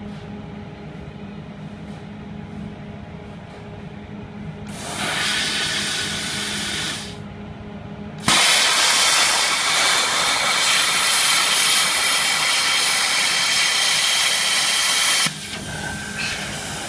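Air plasma cutter cutting 8 mm steel plate. A low hum is followed by a short burst of hissing, then about seven seconds of loud steady hissing as the cut is made. A weaker hiss of air carries on for a second or so after the arc stops.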